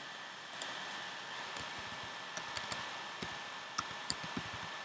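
A computer mouse clicking, about eight light clicks scattered over a few seconds and bunched in the second half, over a steady background hiss with a faint high-pitched whine.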